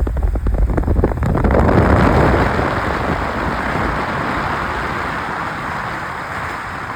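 Heavy rain falling steadily. For the first couple of seconds a low rumble of wind buffeting the microphone sits under it, then it settles into an even hiss.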